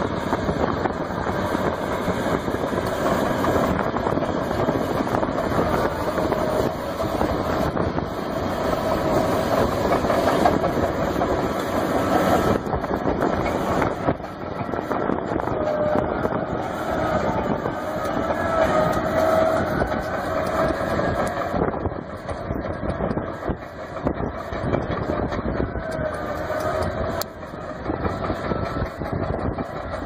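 John Deere 1050C crawler dozer's diesel engine running under load, with a steady rapid clatter and a wavering whine, as its rear ripper shanks tear through rooty ground.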